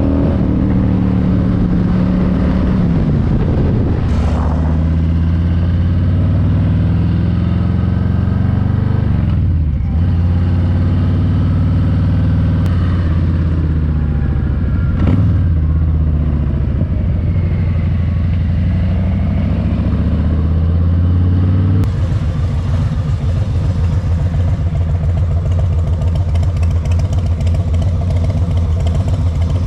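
Harley-Davidson Street Bob 114's Milwaukee-Eight V-twin running through Shark Road slip-on mufflers. Its pitch rises and drops several times as it pulls through the gears, then changes abruptly about three quarters of the way in to a steady, lumpy idle.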